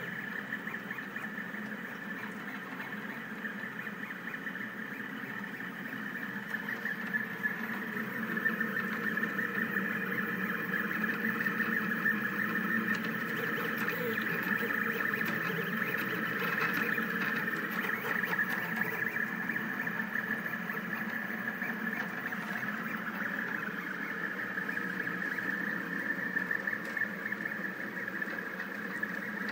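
Rostock delta 3D printer printing: its stepper motors run with a steady whine made of several tones, getting a little louder about a quarter of the way in.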